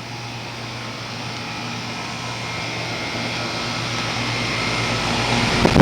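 Goodman heat pump outdoor unit running in heat mode: a steady fan and compressor hum with a constant low tone, growing steadily louder. Its outdoor coil is frozen up.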